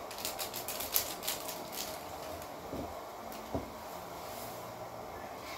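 Crinkling and crackling of a small plastic sachet being torn open and emptied over a bowl. The crackles come in a quick cluster through the first two seconds, followed by two soft knocks on the wooden table.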